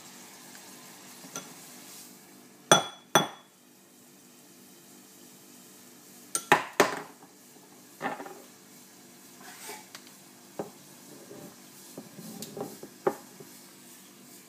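Metal tongs clinking against a bowl of liquid nitrogen: two sharp, ringing clinks about three seconds in. A cluster of hard knocks follows around six and a half seconds, then scattered lighter taps and clicks.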